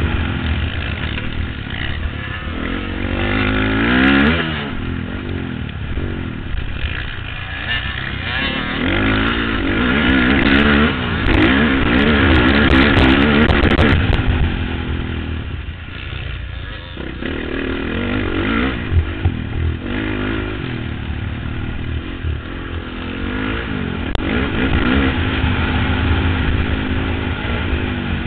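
Motocross bike engine revving up and falling back again and again through the gears at race speed, with a patch of sharp crackles in the middle.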